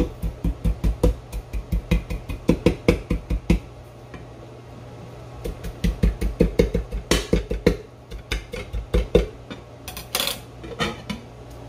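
Scallion being mashed by hand in the kitchen: runs of quick knocks and thuds, about four a second, broken by short pauses, with a couple of sharper clatters in the second half.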